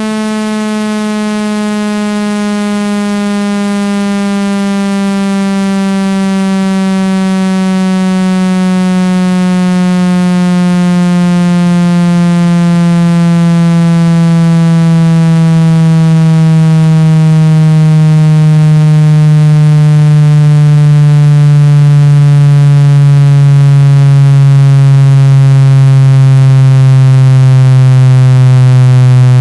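Synthetic speaker-cleaning tone: a loud, buzzy electronic tone rich in overtones that slides slowly down in pitch and grows steadily louder. It is meant to shake the speaker membrane and push out water and dust.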